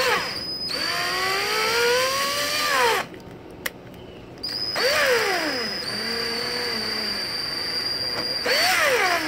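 Power drill turning a 6 mm tap to cut a thread into a hole in a PVC pool pipe, run slowly. The motor whine rises and falls in pitch as the trigger is worked. It stops for about a second and a half around three seconds in, then runs again.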